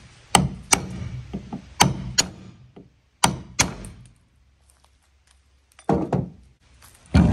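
Hammer striking a sharp steel punch held against an epoxy-sealed rivet in a metal test plate, knocking the rivet out: six sharp blows in three quick pairs. Two duller knocks follow near the end.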